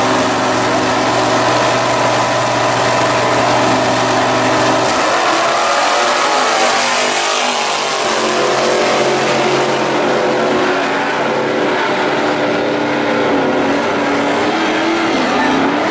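Engines of two drag-racing cars, a gasser and a muscle car, held at steady revs on the starting line, then launching about five seconds in and accelerating hard down the strip.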